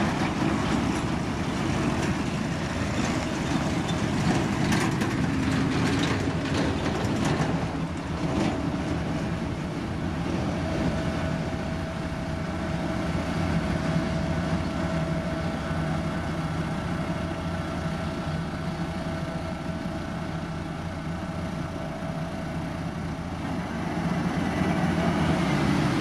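Heavy diesel road-construction machinery running steadily with a low engine drone. It rattles and clanks between about four and eight seconds in, and a steady higher whine joins about ten seconds in.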